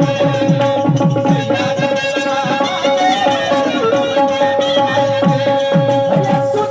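Instrumental interlude of live folk music: a harmonium-like instrument holding two steady notes over a rhythm of hand-drum strokes whose deep tone slides down in pitch after each stroke.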